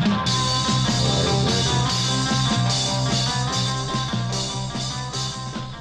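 Rock music with a steady beat and a sustained bass line, growing quieter near the end.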